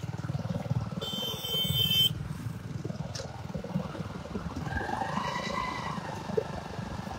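Motorcycle engine running steadily while riding, a low even pulsing throughout. A short high hiss comes about a second in, and a drawn-out higher tone rises and falls around five seconds in.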